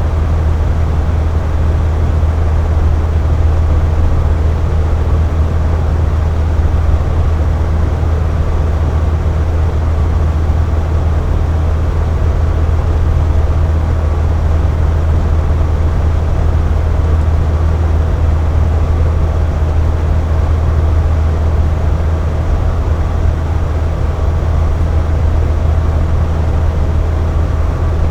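Air conditioner running steadily: a strong, even low hum with a constant airy rush of fan noise above it.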